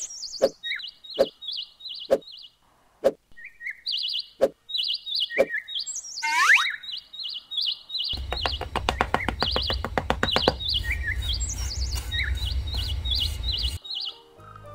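Birds chirping in short, quickly repeated chirps. Sharp knocks come about once a second in the first half, and a low steady hum joins about halfway through.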